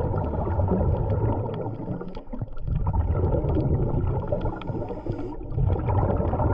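Muffled rumbling and gurgling of water, with scattered faint clicks.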